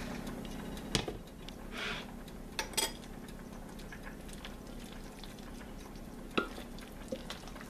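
A spatula stirring and folding black beans into a thick, creamy dip in a ceramic mixing bowl. The stirring is quiet, with a few sharp clicks where the spatula knocks against the bowl.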